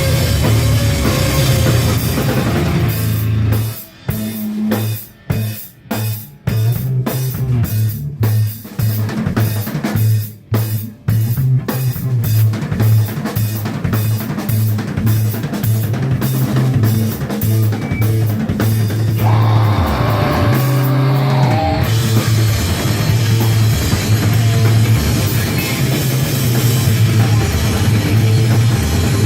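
Live rock band playing loud, led by drum kit and heavy bass. From about four to eleven seconds in the band plays stop-start hits with short gaps between them, then plays on continuously.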